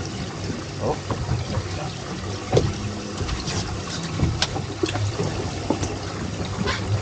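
Water sloshing and trickling against a fishing boat's hull over a steady low hum, with scattered small clicks and knocks.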